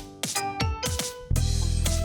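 Electronic background music with drum hits. A heavy, sustained bass comes in about a second and a half in.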